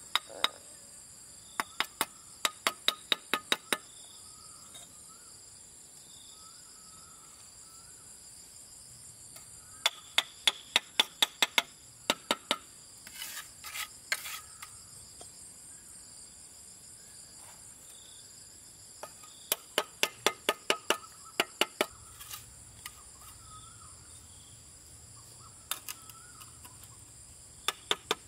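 A steel trowel tapping red clay bricks down into wet mortar, in several runs of sharp taps about three or four a second. Insects trill steadily underneath.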